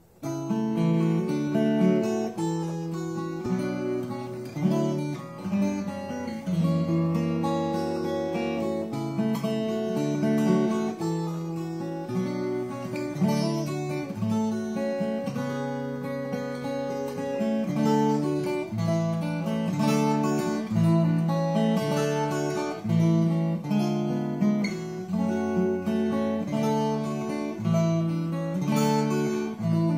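Solo acoustic guitar playing an instrumental tune, picked notes and strummed chords ringing over one another.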